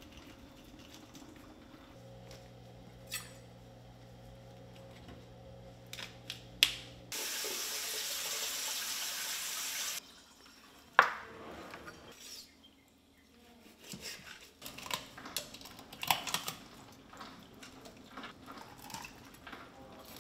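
Kitchen sink tap running for about three seconds, rinsing a fresh bluefish fillet, with short sharp knocks on a plastic cutting board before and after; the loudest knock comes just after the water stops.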